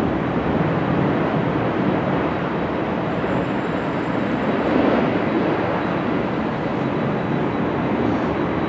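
Rolls-Royce Trent 1000 jet engines of a Boeing 787 on final approach, a steady rushing noise as the airliner passes low toward touchdown.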